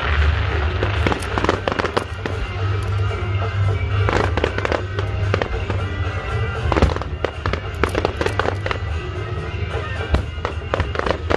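Aerial firework shells and low-level fireworks going off in a fast series of sharp bangs, coming in clusters, with music playing underneath.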